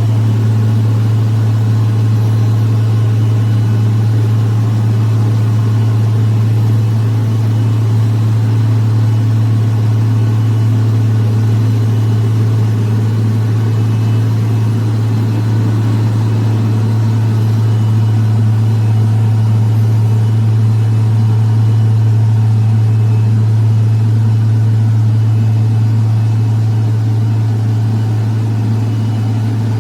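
Heavy road-working machinery's diesel engine running steadily under load, a loud, constant low hum with no change in pitch.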